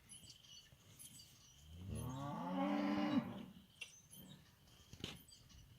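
A cow moos once, about two seconds in: a call of about a second and a half that rises in pitch, holds steady, then drops away at the end.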